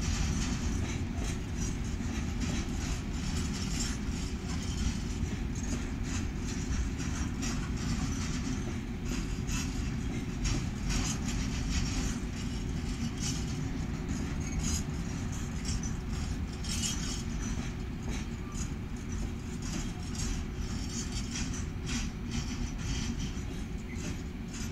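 Freight train wagons rolling past on the track: a steady low rumble with many short, high clicks and squeaks from the wheels and rails.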